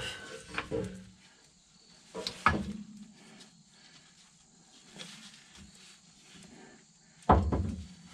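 Scattered metal knocks and clanks as a new coil spring is worked into its seat on a car's rear axle, with a heavier thump about seven seconds in, over a faint steady hum.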